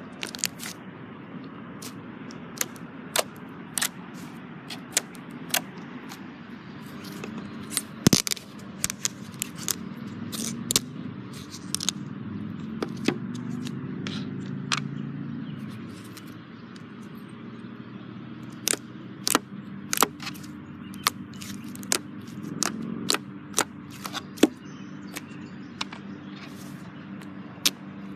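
Slime being squeezed and worked by hand: irregular sharp pops and crackles, a dozen or more scattered through it, over a soft steady rustle, with the loudest pop about eight seconds in.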